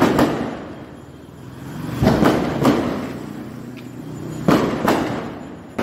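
Diwali firecrackers going off: a series of sharp bangs, about seven, coming in twos and threes, each with a short echoing tail.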